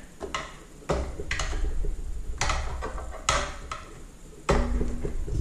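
A metal fuel line removal tool clicking and scraping against a tight rubber throttle knob and the throttle lever as the knob is pried off a Briggs and Stratton engine. There are several sharp, irregularly spaced clicks over a low rumble.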